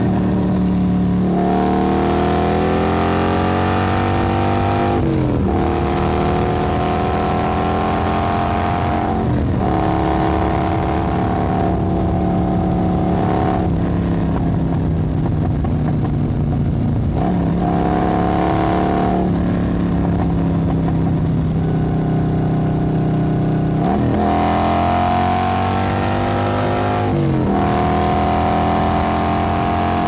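Motorcycle engine driving at low revs. Its pitch climbs slowly and then drops sharply several times, as the bike pulls through each gear and shifts.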